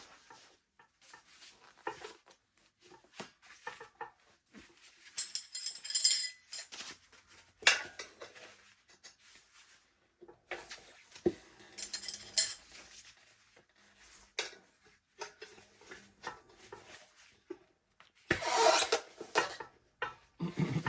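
Steel tire irons clinking, scraping and levering against a dirt bike's wheel rim while a paddle tire is worked onto it, in irregular metallic clinks and knocks with rubbing of rubber on metal and a louder scraping rush near the end.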